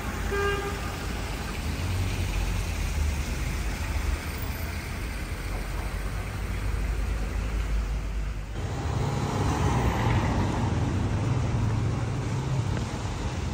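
City street traffic: a steady hum of passing cars and road noise. A horn toot ends about half a second in, and the traffic sound shifts abruptly about eight and a half seconds in.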